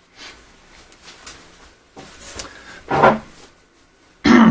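Irregular handling noises on a desk: a few light clicks and rustles, then two louder thumps, one about three seconds in and a sharper one near the end.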